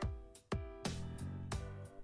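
Background music of plucked notes in a quick, even run.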